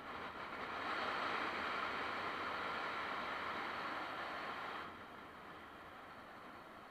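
Steady rushing wind and road noise from a Honda CBR650F motorcycle ride, with no distinct engine note. It swells about a second in and drops suddenly about five seconds in.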